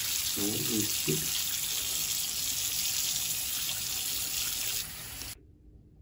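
Water running from a chrome bath mixer tap, a steady hiss, shut off about five seconds in.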